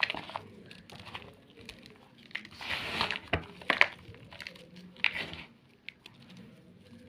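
Block of gym chalk being crushed, crunching and crackling in irregular bursts with sharp little snaps, the largest crunches about three, four and five seconds in.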